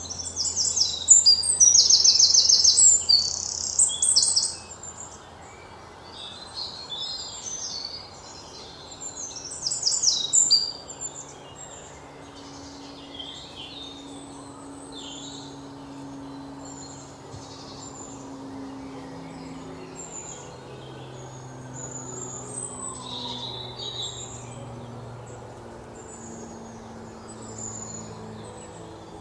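Small songbirds chirping and trilling in quick runs of high notes, loudest in the first few seconds and again around ten seconds in. Under them, low held notes of soft background music shift slowly from one pitch to another.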